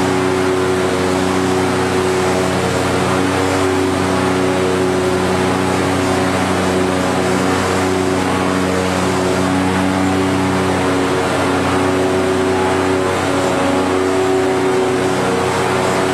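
Steady mechanical drone of a corrugated cardboard production line running, several steady hum tones over a constant rush of machine noise.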